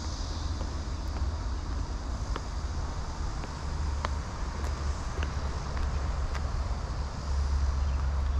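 Steady low outdoor rumble, getting a little louder near the end, with a faint high hiss and a few scattered faint clicks.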